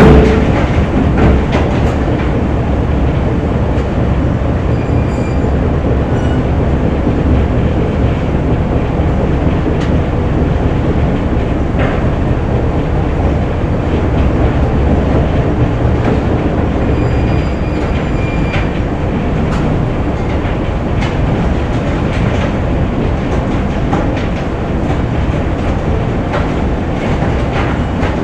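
Steady, dense rumble and clatter of factory machinery, with occasional sharp ticks and a few brief faint high squeals.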